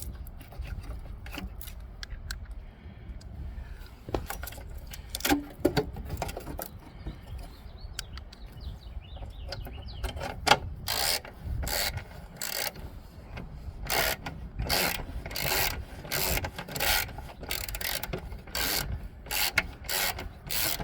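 Hand socket ratchet turning the mower's engine mounting bolts: scattered small clicks and rubbing at first, then from about halfway on, repeated strokes of the ratchet clicking, one or two a second.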